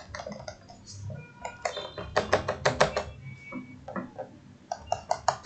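Runs of light, quick clicks from the mouse or stylus input as a dashed line is drawn stroke by stroke in a computer drawing app, with a fast run of about eight clicks two to three seconds in and another near the end.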